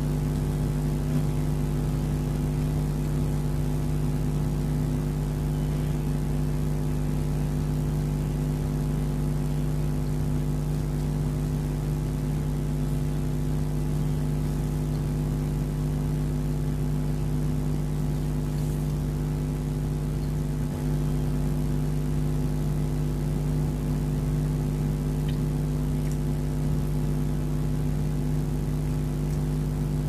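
A steady low hum of several tones, unchanging throughout, with a few faint clicks.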